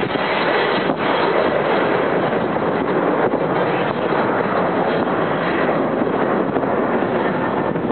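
Airliner passing by, a loud steady rushing noise from its engines.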